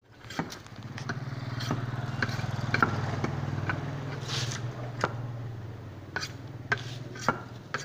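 A low engine hum that builds over the first few seconds and slowly fades, with irregular sharp knocks and clicks from bamboo tubes being handled and worked.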